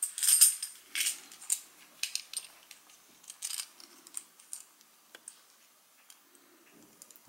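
Silver Franklin half dollars and their packaging being handled. A few crinkling rustles in the first second and a half are followed by scattered light clicks and clinks of coins, growing sparser and fainter.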